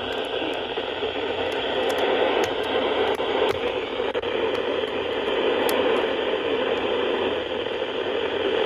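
Steady static hiss from a weather radio receiver, a muffled, even noise with no voice or tone on the channel.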